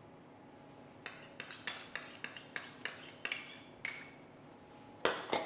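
Metal spoon clinking against a porcelain bowl: a run of about ten light, ringing taps at roughly three a second, then a louder clatter near the end.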